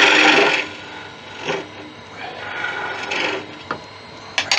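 Turning tool hollowing the end grain of a spinning acacia blank on a wood lathe: a loud rasping cut that stops under a second in, followed by shorter, quieter cuts, and a few sharp clicks near the end.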